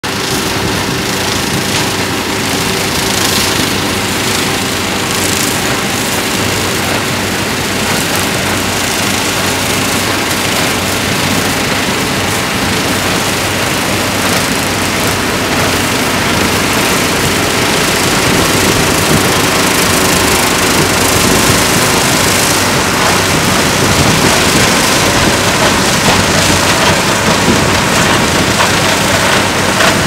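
Fendt tractor engine running under load, pulling a CLAAS Quadrant 2200 large square baler that is picking up and baling a windrow of cut giant reed (Arundo donax). Steady, dense machine noise that grows a little louder toward the end as the baler comes past.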